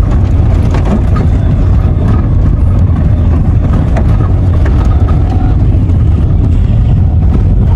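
Inside the cabin of a small Subaru hatchback driven along a rough, unsurfaced lane: a steady low rumble of engine and tyres, with scattered knocks and rattles from the bumpy track.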